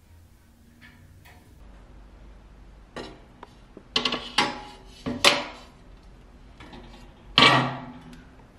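Glass shelf pane of an IKEA VITTSJÖ shelf unit clinking and knocking against its metal frame as it is fitted into place. There are several sharp, ringing clinks, the loudest near the end.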